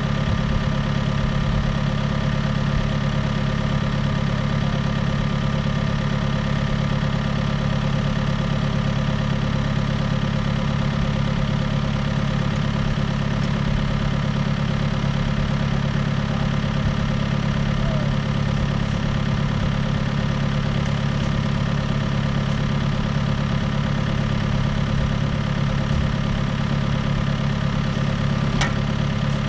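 John Deere tractor's diesel engine idling steadily while the tractor stands still.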